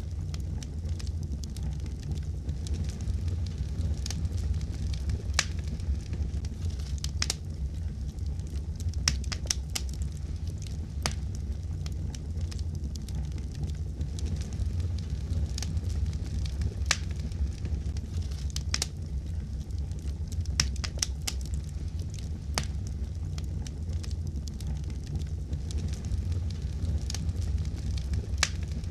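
Fireplace fire crackling, with irregular sharp pops and snaps over a steady low rumble of the flames.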